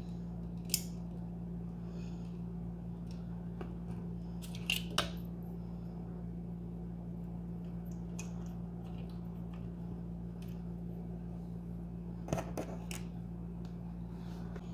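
A hand tool and small parts clicking and tapping against the plastic extruder body while a screw is worked in and will not catch. There are a few sharp ticks about a second in, a double click near five seconds and a cluster around twelve seconds, over a steady low hum.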